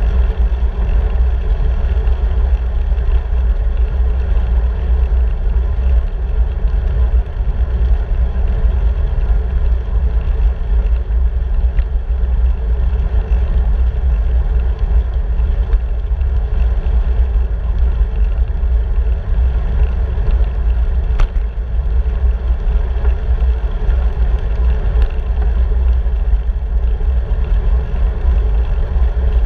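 Wind buffeting the microphone of a handlebar-mounted camera on a moving bicycle: a loud, steady low rumble with a hiss of air and road noise over it. A single brief tick about two-thirds of the way through.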